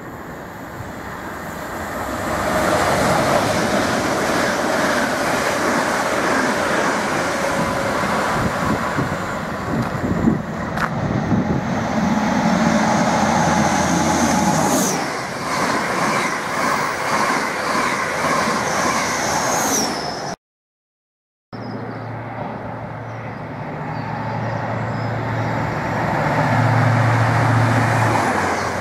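High Speed Train diesel sets with Class 43 power cars passing through a station at speed: engine drone with wheel and rail noise that builds as the first train comes through. After a sudden second of silence, a second power car runs by close, its low engine note loudest near the end.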